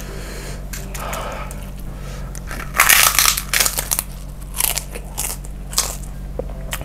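Kerupuk (Indonesian puffed cracker) bitten with a loud crunch about three seconds in, followed by several shorter crunches as it is chewed.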